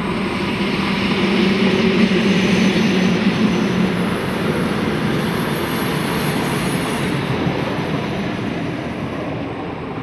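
Metre-gauge electric locomotive hauling a freight train past, its motors humming loudest in the first few seconds as it goes by, then the wagons rolling past with a thin high squeal partway through, fading toward the end.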